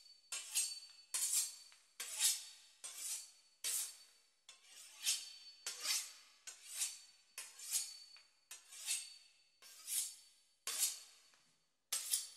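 A knife sawing back and forth through the crisp pastry crust of a beef Wellington, giving a steady series of dry, crackly scraping strokes about one every 0.7 seconds.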